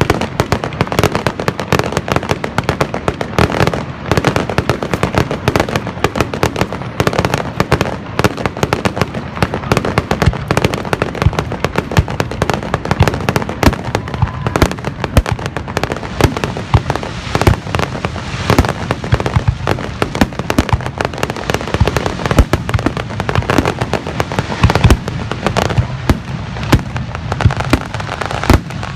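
Fireworks finale: a dense, unbroken barrage of aerial shells bursting, many loud bangs a second that overlap one another.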